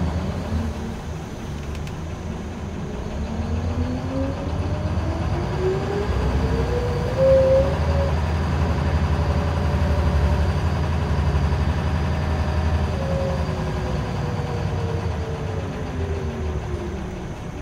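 Scania L94UB single-decker bus heard from inside the passenger saloon: a steady low drone under a whine that climbs in pitch over the first seven seconds or so as the bus gathers speed, holds, then falls away over the last few seconds as it slows.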